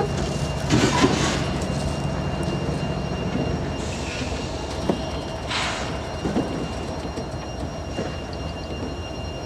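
Railroad cars, a baggage car and a caboose, rolling slowly past on the rails. Their wheels make a steady rumble, with three short high-pitched bursts and a few light clicks.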